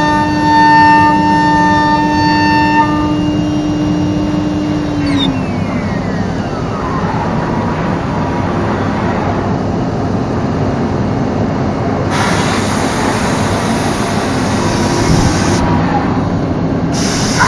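Biesse Rover A CNC router spindle whining at a steady high pitch, then spinning down with a falling whine about five seconds in. A steady rushing machine noise runs under it, and a loud hiss comes in around twelve seconds, stops briefly a little before the end and then returns.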